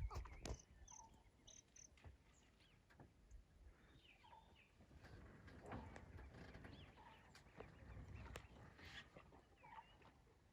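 Faint wild birds calling, with many short chirps and whistles scattered throughout, over soft clicks and low rustling.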